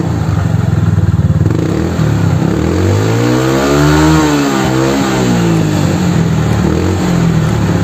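Carburetted Yamaha Mio scooter's single-cylinder four-stroke engine idling through its stock muffler, which has had its internals hollowed out (bobok). About two and a half seconds in it is revved once: the pitch rises to a peak about four seconds in and falls back to a steady idle.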